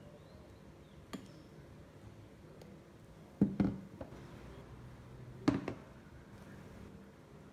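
Light knocks and clinks of a metal ladle against the batter bowls and tin while scooping and pouring batter: one tap about a second in, a quick cluster of three or four about three and a half seconds in, and a pair about five and a half seconds in, over faint room tone.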